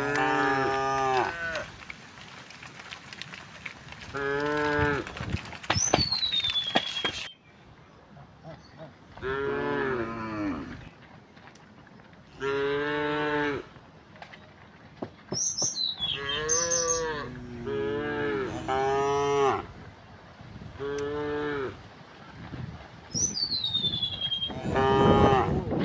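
Cattle mooing over and over, about nine long calls a couple of seconds apart. Three short high whistles falling in pitch cut in between the moos.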